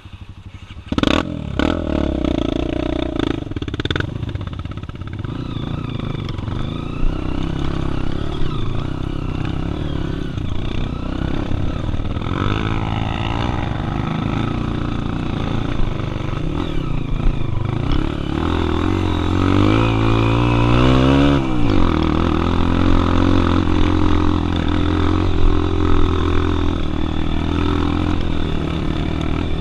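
Single-cylinder trail motorcycle engine running. It gets suddenly louder about a second in, and the revs rise and fall around twenty seconds in before it settles into steady running.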